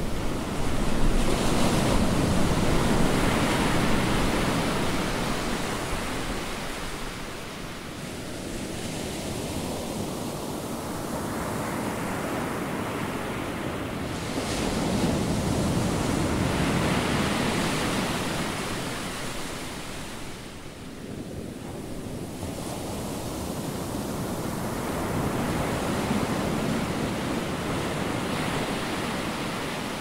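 Ocean surf breaking on a sandy beach, a steady wash that swells and fades three times: about a second in, about fifteen seconds in, and near the end.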